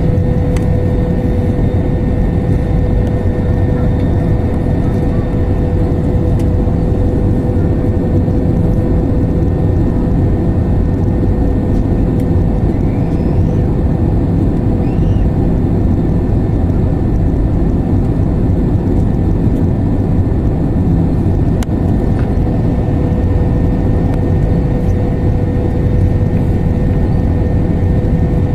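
Airliner cabin noise on approach to landing: a steady, loud rumble of engines and airflow, with a steady hum running through it.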